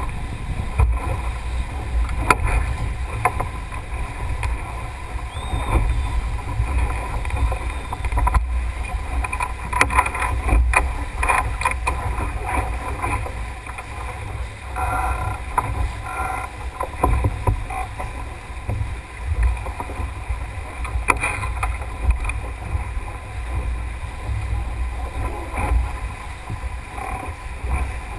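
Water rushing along the hull of a Melges 24 keelboat under sail, with wind rumbling on the microphone and scattered short knocks.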